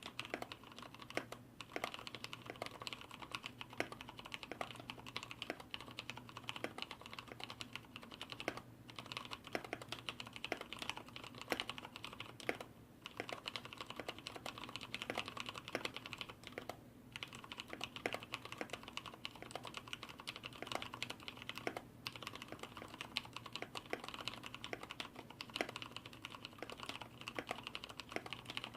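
Continuous fast typing on a Hansung GTune MCF7 mechanical keyboard with Cherry MX Brown switches, its sliders and stabilizers lubed and sound dampening added, so the keystrokes sound quiet with hardly any stabilizer wire rattle. The typing stops briefly three times.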